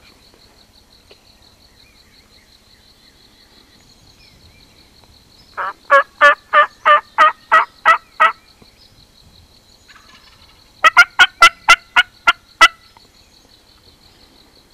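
Hen-turkey yelping from a hunter's turkey call, loud and close: a run of about nine evenly spaced yelps, then after a short pause a sharper, raspier run of about eight faster yelps.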